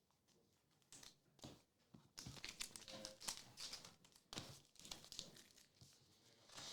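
Faint crinkling and rustling of card-pack packaging being handled, a run of short crackles that starts about a second in and stops near the end.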